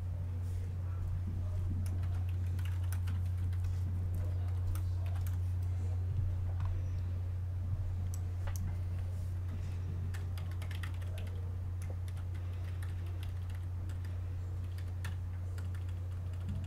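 A steady low hum with faint, irregular clicks of a computer keyboard being typed on.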